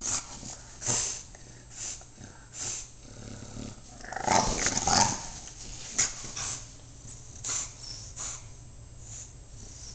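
English bulldog making playful vocal noises while wriggling on a leather couch: short noisy sounds about once a second, with a louder, longer stretch about four to five seconds in.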